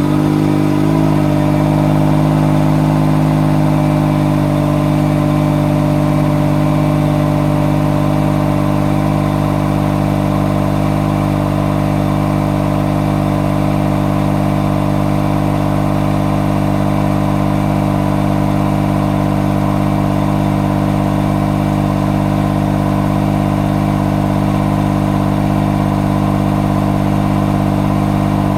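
Honda S660's 658 cc turbocharged three-cylinder engine idling steadily through a Spoon Sports sport exhaust muffler, just after a cold start.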